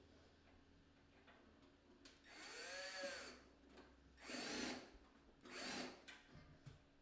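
Faint power drill driving screws through an LED strip into a light fixture: three short runs, the first about two seconds in, rising then falling in pitch, then two shorter ones.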